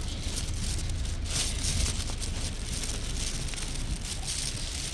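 Steady rain falling, with a low rumble of wind on the microphone.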